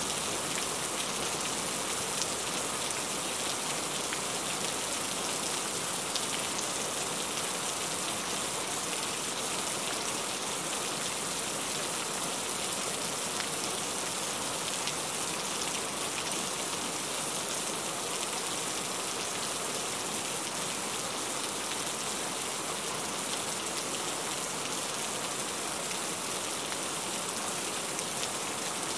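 Heavy rain falling steadily on a roof, a dense patter of drops with water dripping off the roof edge.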